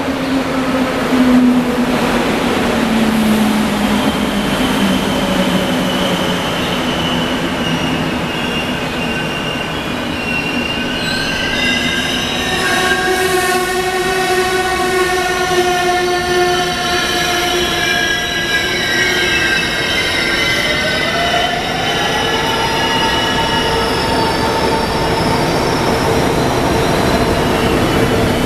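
An ICE high-speed train rolls into the station past the platform. Its running gear gives off several steady whining and squealing tones that slide in pitch, with lower tones falling early on and one tone rising about two-thirds of the way through.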